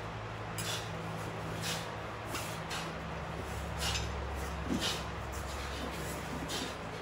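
Pairs of metal sai flipped and swung through the air, making a series of short soft swishes, with bare feet shuffling on foam mats. A steady low hum lies under it.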